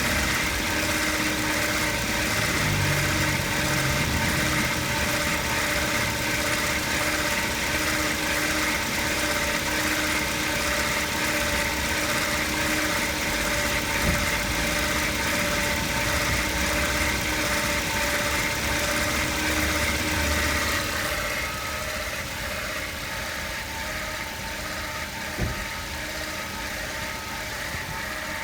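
Toyota Vitz engine idling with a steady whirring whine over its running: a strange noise that mechanics have not been able to trace. It gets somewhat quieter about three-quarters of the way through, and a single short knock comes soon after.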